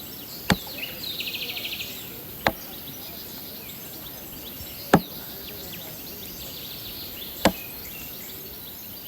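Four sharp knocks, evenly spaced about two and a half seconds apart, over the steady rush of flowing water. A short, rapid, high-pitched trill sounds about a second in.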